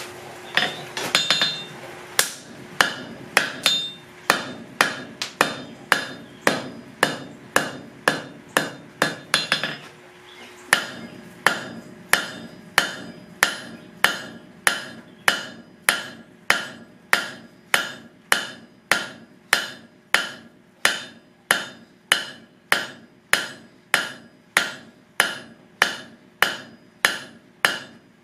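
Hand hammer striking hot 3/8-inch square steel bar on an anvil horn, forging out a leaf: a long run of steady, sharp blows at about one and a half a second. A steady hum sounds under the blows and stops about ten seconds in.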